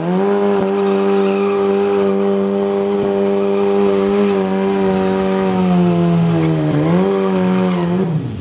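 A drag-racing motorcycle engine held at steady high revs during a burnout, the rear tyre spinning on the tarmac and smoking to heat it before a run. The note sags and dips once near the end, then cuts back.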